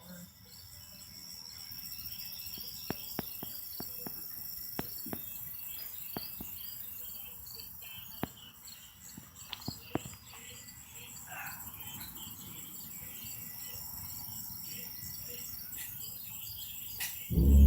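Crickets and other insects chirping steadily, with a few sharp clicks. Near the end a loud low sound with several tones starts suddenly: the unexplained noise that the recorder is waiting for.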